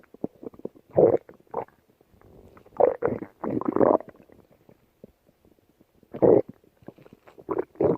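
Stomach growling in several separate bouts with quiet gaps between, the longest running for about a second around three seconds in and a few shorter ones near the end.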